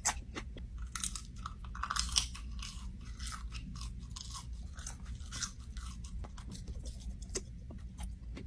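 A person chewing crunchy food close to the microphone, with a string of sharp, irregular crunches.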